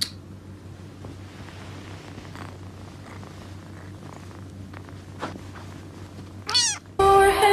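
A cat meows once, a short call about six and a half seconds in, over a low steady hum. Loud music comes in just before the end.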